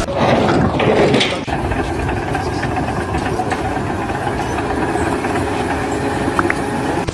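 Machinery running steadily, with an abrupt change in the sound about a second and a half in.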